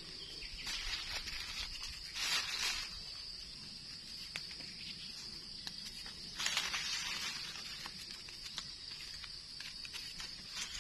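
Dry eucalyptus leaf litter rustling and crackling as it is pushed aside by hand and knife, in two bursts about 2 s and 6.5 s in, with small clicks of twigs between. A steady high insect drone runs underneath.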